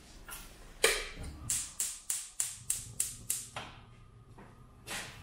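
A quick run of about nine sharp clicks, roughly three a second, stopping after a few seconds, then one more click near the end.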